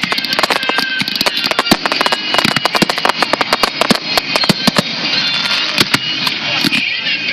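Fireworks finale: a dense, rapid barrage of aerial shell bursts with crackling, several sharp bangs a second. The bangs thin out a little after about five seconds while the crackling carries on.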